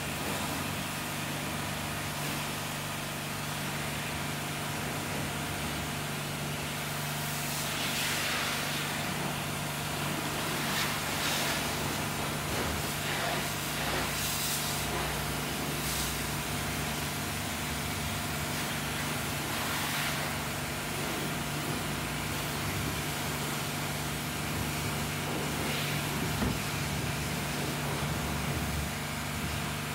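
Pressure washer running with a steady motor hum, its high-pressure jet hissing in surges every few seconds as water is sprayed onto a car.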